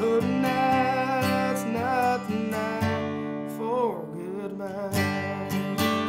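Acoustic guitar strummed in a slow country ballad, with a sung note held and wavering through the first few seconds before it trails off about four seconds in. Crisp strums come through near the end.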